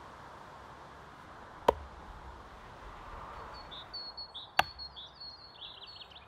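Two sharp single strikes of a steel blade into wood, one a little under two seconds in and one near five seconds in; the second is an axe biting into a wooden chopping block. Small birds chirp over the second half.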